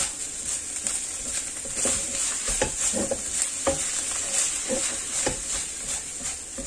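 Minced pork and chopped preserved vegetables sizzling in a nonstick wok under a steady hiss, while a silicone spatula stirs and scrapes them across the pan in repeated strokes, about one or two a second.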